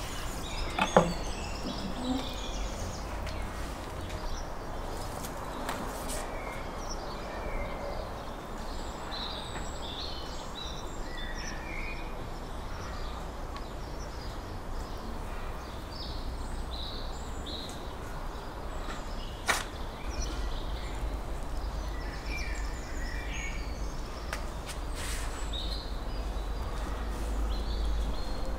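Outdoor yard ambience: small birds chirping on and off over a steady low rumble that grows stronger near the end. A sharp knock about a second in and another about two-thirds through, a knife striking a wooden cutting board.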